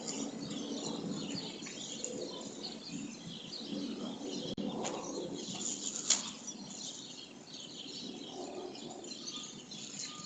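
Birds chirping over steady outdoor background noise, with one sharp click about six seconds in.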